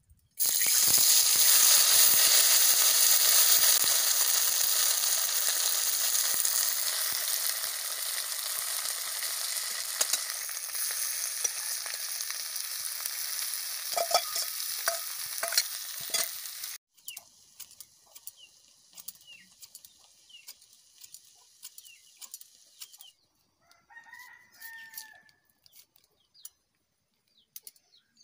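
Small fish tipped into hot oil in a kadai, sizzling loudly at once and then slowly settling as they fry, with a few clinks of a spatula against the pan. After that it goes quiet, and a rooster crows briefly near the end.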